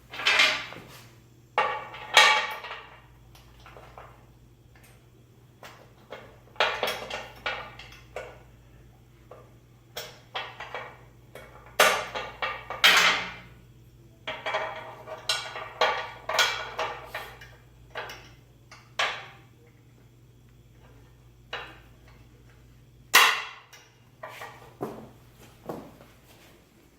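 Irregular metallic clanks, knocks and rattles as the steel maintenance locks are worked off a raised hydraulic scissor lift table, over a faint low steady hum that stops a few seconds before the end.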